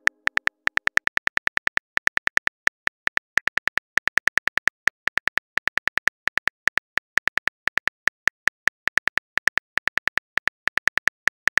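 Smartphone keyboard key-click sound effect for a message being typed out: a rapid, even string of sharp clicks, about six a second, with a few brief pauses.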